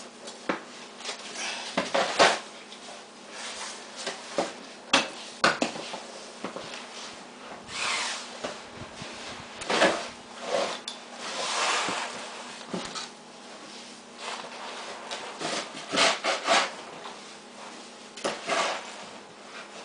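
Snow shovel digging into and scraping through deep snow: irregular scrapes and knocks, with a few longer scrapes as loads are pushed or lifted.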